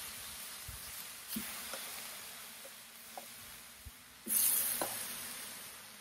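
Pineapple slices sizzling on a hot cast iron griddle pan. The sizzle flares up loudly about four seconds in as another slice is laid on with tongs, then slowly fades, with a few light clicks of the tongs.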